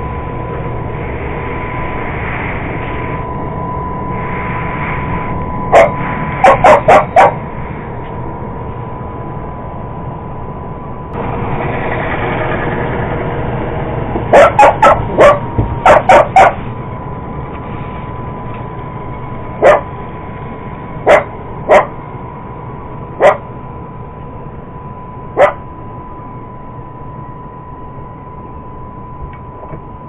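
Cocker Spaniel barking over an iRobot Roomba robot vacuum running on carpet. A quick run of barks comes about six seconds in and another around fifteen seconds in, then single barks every second or two until about twenty-five seconds in. The vacuum's steady running noise, with a thin high tone, carries on underneath.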